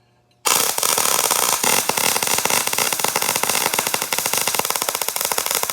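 MIG welding arc striking about half a second in, then crackling steadily as a bead is laid, with the welder turned up to about 22 volts.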